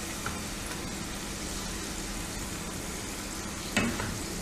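Modaks deep-frying in hot oil, cooking until light brown: a steady, even sizzle of bubbling oil, with a brief louder sound near the end.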